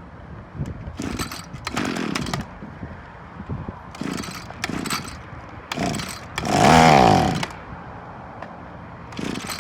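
Echo two-stroke string trimmer engine being pull-started again and again, firing in short sputters. About two-thirds of the way in it catches and revs up sharply for about a second, then dies. It will not keep running, the trouble the owner blames on a dirty carburetor.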